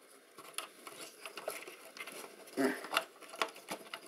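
Scattered small clicks and taps of circuit boards and their wiring being handled and pressed back into a metal avionics chassis.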